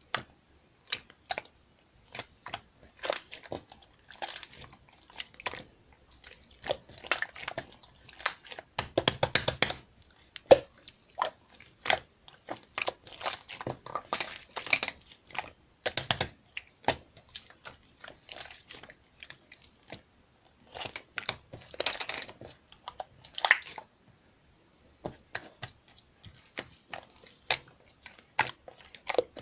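Slime being squished, folded and poked by hand: irregular sticky clicks, pops and crackles, with a fast run of pops about nine seconds in.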